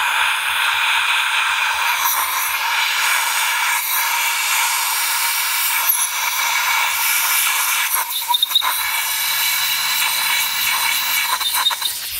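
Compressed-air blow gun blasting a steady loud hiss, clearing metal chips out of a freshly tapped head-stud hole. A few light clicks come about eight seconds in and again near the end.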